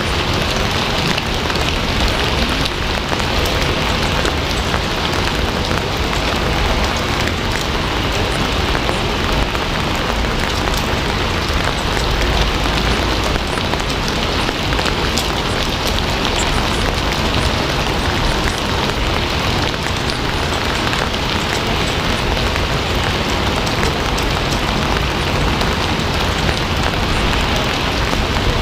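Steady, dense rain pattering on a surface, an even hiss with fine drop ticks and a low rumble underneath, unchanging throughout.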